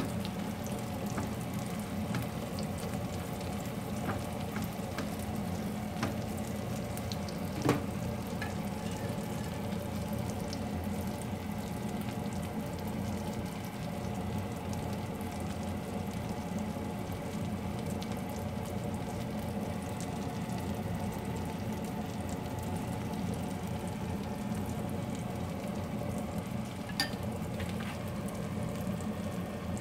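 Eggplant omelettes sizzling steadily as they shallow-fry in oil in a nonstick pan, with a sharp click about eight seconds in and another near the end.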